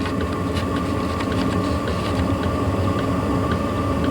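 Chinese diesel heater burning pure engine oil: a steady combustion and blower rumble with a fan whine, and the fuel dosing pump ticking about three times a second. The heater has lit and is sustaining combustion on the oil.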